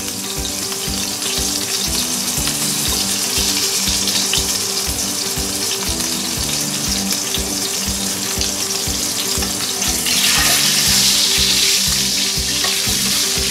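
Chicken leg quarter sizzling in very hot oil in a steel pan, the sizzle swelling about ten seconds in as tongs move the chicken around. Background music with a steady beat plays underneath.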